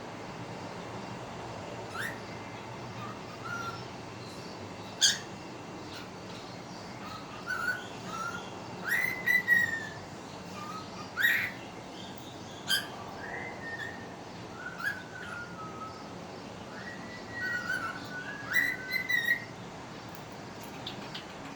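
Pet bird whistling short, clear notes, several rising and then held, mixed with sharp sudden chirps, during tune training.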